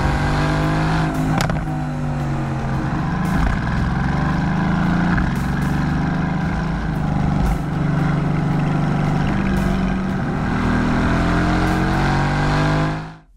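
An AMG 4.0-litre twin-turbo V8 car driven hard on track, its engine pitch sliding up and down as it accelerates and lifts off, with a few sharp cracks from the exhaust. The sound fades out abruptly near the end.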